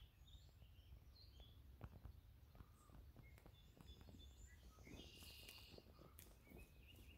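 Faint birdsong in woodland: several birds chirping and whistling in short calls, with a buzzy trill about five seconds in, among faint ticks and rustles.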